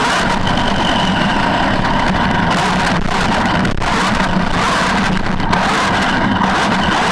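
Traxxas E-Maxx electric RC monster truck driving, its electric motor whine mixed with steady tyre and rolling noise.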